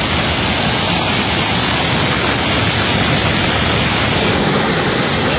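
Steady rushing of water where lake water pours through a channel cut in a sandbar into the sea, mixed with breaking surf.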